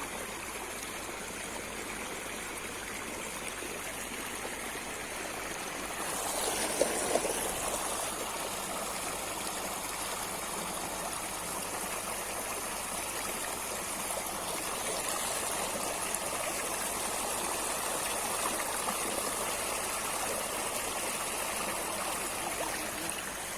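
River water flowing steadily, an even rushing noise that swells briefly about seven seconds in.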